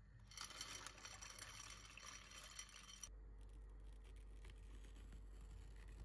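Dry penne pasta sliding out of a glass bowl and pattering into a pot of water: a soft rattling hiss of many small ticks that stops about three seconds in, leaving only a faint low hum.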